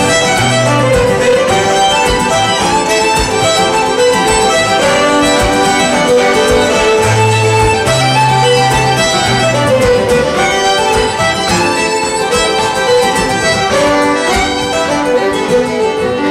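Irish traditional dance music: three fiddles playing a fast reel together over strummed acoustic guitar.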